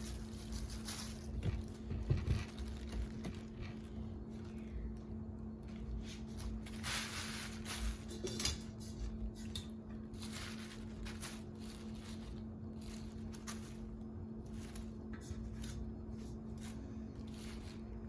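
Light clinks, taps and handling noises as coated chicken wings are placed into a metal deep-fryer basket, over a steady low hum.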